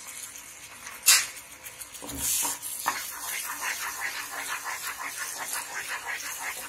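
Wooden spatula stirring thick tomato-onion masala paste in a nonstick pan: a sharp click about a second in, then quick, rhythmic wet scraping strokes from about three seconds in.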